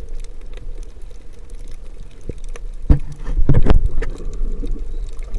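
Underwater sound picked up by a camera mounted on a speargun: a steady low rumble with scattered faint clicks, then a sharp thump about three seconds in, followed by a brief, loud rush of noise.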